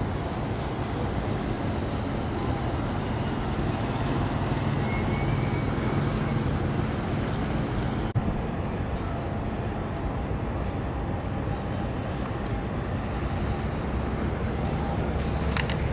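Steady low engine rumble with a constant hiss, broken by a short click about halfway through and a brief sharp high noise near the end.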